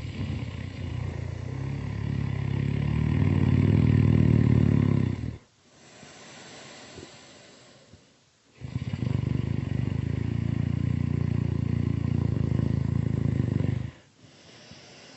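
Loud snoring: two long, low rattling snores of about five seconds each, with a quieter breath between them.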